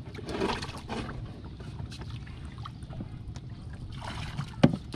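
Water being bailed out of a wooden boat: a container of water is poured over the side and splashes into the river, once early on and again near the end, over a low steady rumble of water and wind. A single sharp knock, the loudest sound, comes just before the end.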